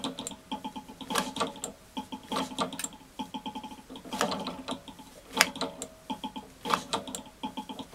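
Rhombic-drive Stirling engine charged to 2 bar and turned over slowly by hand for a compression check: the drive mechanism clicks in short runs of quick ticks, with a few sharper knocks.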